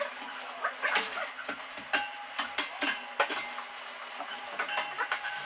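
Irregular knocks and metallic clinks of footsteps on steel stair treads while a heavy white oak platform is carried up the stairs and bumps against them, with brief squeaks mixed in.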